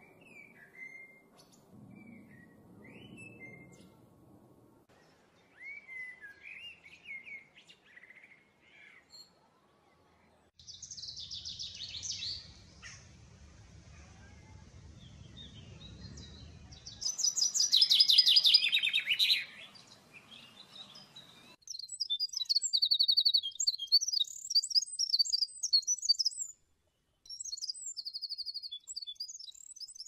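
Three bird songs in turn: a common blackbird's soft short warbling phrases, then a common chaffinch singing two loud song bursts, then a Eurasian wren's high, rapid trilling song in several bursts.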